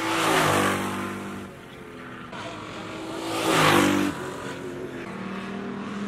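Race cars passing close by: two loud passes about three seconds apart, each engine note dropping in pitch as it goes by, then engines running steadily at a distance.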